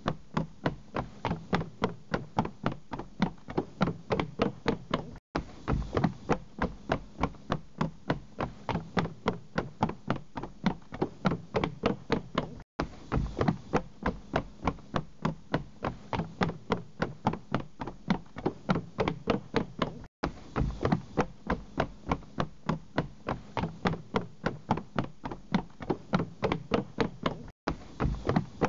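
Running footsteps on wooden boardwalk planks, sharp knocks about three a second, with a brief cut-out about every seven seconds where the track repeats.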